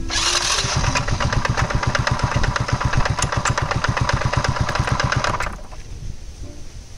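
Honda Little Cub's single-cylinder four-stroke engine running with a dense, rapid mechanical clatter, then cutting off abruptly about five and a half seconds in. The engine is damaged after a seizure; the owner suspects scored parts from a thrashing cam chain and probably a damaged connecting rod.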